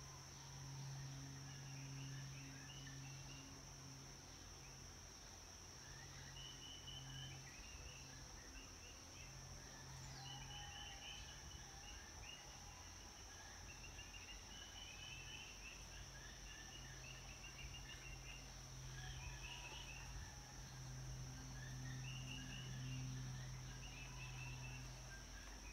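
Daytime garden ambience: a steady high insect drone with scattered short bird chirps and calls throughout, over a faint low hum that comes and goes.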